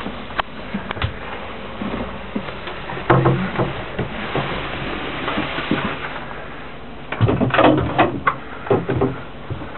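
Handling noise from a handheld camera: a steady hiss with irregular knocks and bumps, in clusters about three seconds in and again between seven and nine seconds, in a small wooden boat cabin.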